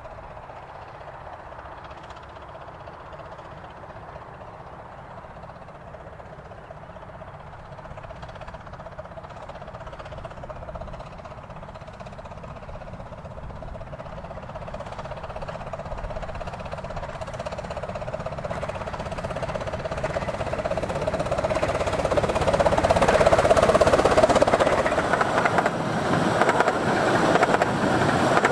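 A one-third-scale 15-inch gauge steam locomotive and train approaching at speed, growing steadily louder until it is close and loudest about 23 seconds in, with the rush and rattle of the train on the rails.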